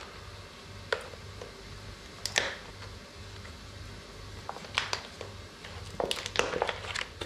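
Hands working at a sealed package of meatballs, trying to get it open: scattered crinkles and sharp clicks, with a small cluster near the end. A steady low hum runs underneath.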